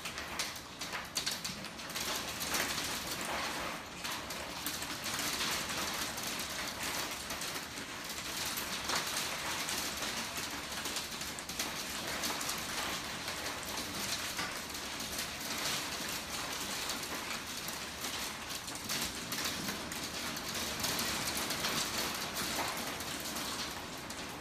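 Hail pelting a wooden deck and a glass door: a dense, steady clatter of countless small hits.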